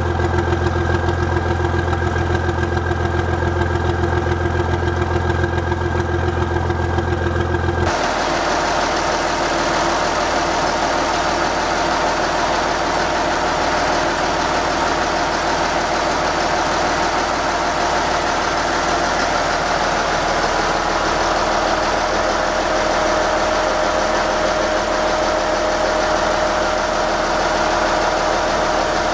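Yanmar turbo diesel inboard boat engine idling steadily just after a start. For the first eight seconds it is heard from outside the hull by its cooling-water outlet as a steady low drone. About eight seconds in it changes abruptly to the fuller, noisier sound of the engine itself in the open engine compartment, with a steady mid-pitched tone growing in later on.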